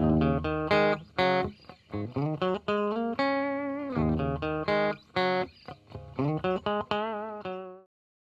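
Intro music: a guitar playing a riff of single notes and short phrases, several of them bent or wavering in pitch, stopping shortly before the end.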